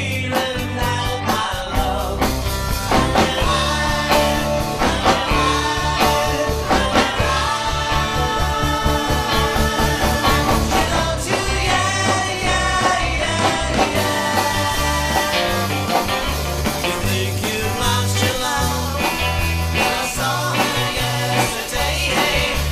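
A 1960s-style beat band playing rock and roll on electric guitars, bass guitar and drum kit, with singing.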